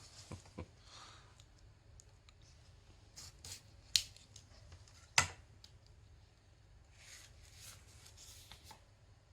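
Handling of a plastic figure and its packaging: light rustling with a few sharp clicks, the two loudest about four and five seconds in.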